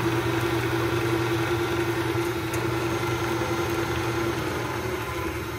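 Electric driveway gate opener motor running steadily as it drives the gate open, a steady mechanical hum that eases a little about four seconds in.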